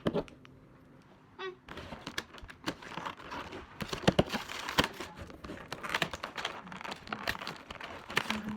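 Toy packaging being crinkled and torn open by hand, with many sharp clicks and crackles starting about a second and a half in.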